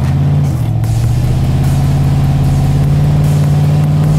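Rock-crawling Jeep's engine running under load at steady revs as it tries to climb a boulder ledge, the pitch shifting about half a second in and then holding. The Jeep has no rear locker and is struggling for traction.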